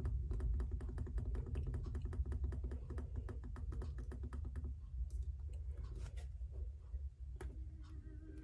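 Rapid, evenly spaced clicking from the controls of a Sangean CL-100 tabletop radio, about six or seven clicks a second, thinning to a few scattered clicks a little past halfway, over a steady low hum.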